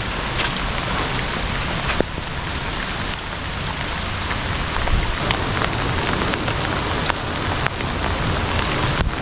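Steady rain falling, with scattered sharp drop hits close to the microphone.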